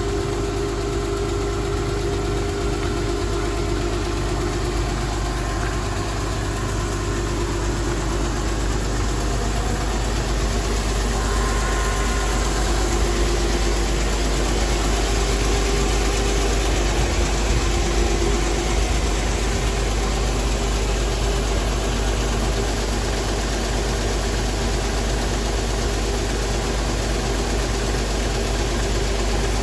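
Bulk feed tanker truck's engine running steadily with an even mechanical hum.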